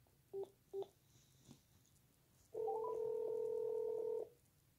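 Phone placing a call on speaker: two short beeps in quick succession, then about two seconds later a steady ringing tone lasting under two seconds as the call rings out.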